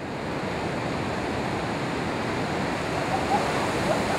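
Ocean surf breaking and rolling in, a steady rush of whitewater.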